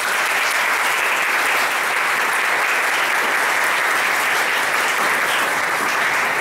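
Audience applauding, a dense, steady clapping that cuts off suddenly near the end.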